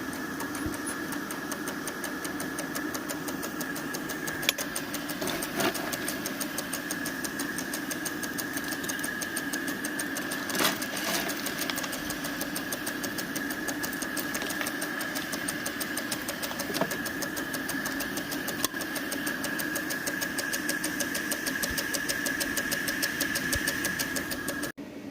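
5-inch gauge live steam locomotive running, its exhaust beating in a fast, even rhythm over a steady high hiss and a low hum, with a few sharper knocks; the sound cuts off abruptly near the end.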